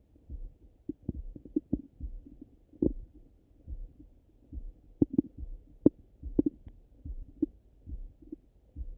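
Digestive gurgles heard through a Littmann stethoscope pressed to the belly after a meal: short, muffled pops and gurgles come at irregular moments, the sharpest a little after five and six seconds in. Under them runs a steady low heartbeat-like thud, about one every 0.8 seconds.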